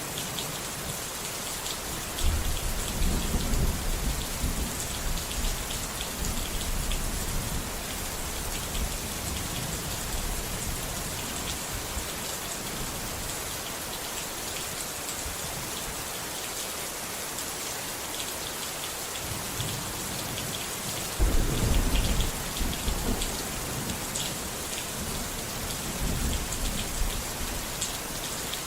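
Steady rain falling, with two rolls of thunder: one rumbling in about two seconds in and dying away over several seconds, and a louder one breaking suddenly about twenty seconds in.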